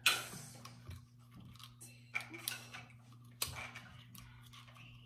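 Plastic phone-scope adapter being fitted by hand over a rifle scope's eyepiece: one sharp knock, then scattered light clicks and scrapes.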